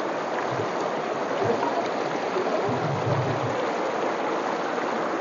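Shallow mountain stream rushing steadily over rocks and stones.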